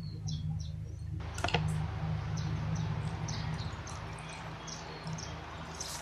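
A plastic 3×3 Rubik's cube being turned fast by hand in a speedsolve: quick, light clicks of the layers turning, over a steady low hum.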